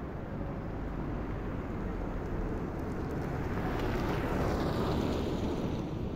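Ford Focus II 1.6 TDCi four-cylinder turbodiesel and its tyres as the car drives past: the engine and tyre noise build to their loudest about four to five seconds in, then fade as it moves away.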